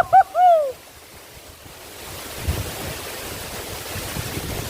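Rushing water of a waterfall, a steady hiss that builds up about a second and a half in, with low wind bumps on the microphone. It opens with three short, high hooting calls, the last one falling in pitch.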